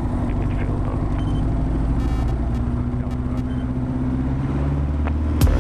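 Van's RV-7A's piston engine and propeller running at low taxi power, a steady drone that rises slightly in pitch in the second half. Music beats come in near the end.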